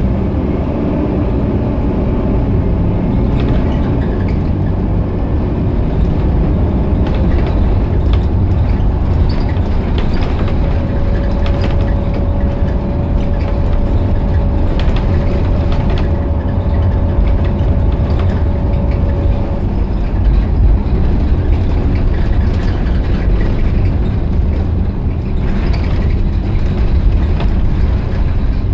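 Cabin noise of an Optare Versa single-deck bus under way: its rear-mounted Mercedes diesel engine running with a deep, steady road rumble and short rattles from the fittings. A steady whine comes in about ten seconds in and fades out near the twenty-second mark.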